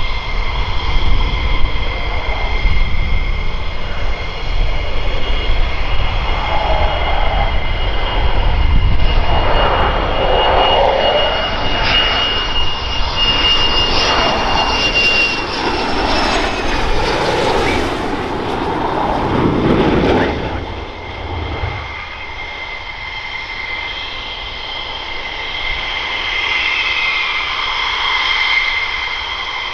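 F-15E Strike Eagle's twin jet engines on final approach: a steady high whine over a heavy rumble, loudest in the first twenty seconds. About twenty seconds in the rumble drops away abruptly, leaving a quieter, more distant jet whine as the aircraft rolls on the runway after touchdown.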